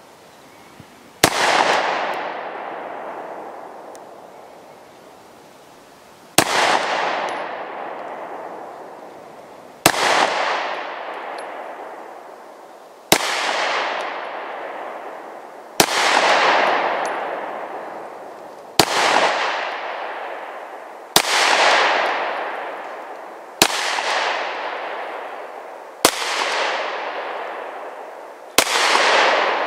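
Springfield Armory XD9 Sub-Compact 9mm pistol firing slow, aimed single shots, ten in all, spaced two and a half to five seconds apart. Each sharp report is followed by a long echo that fades over a couple of seconds.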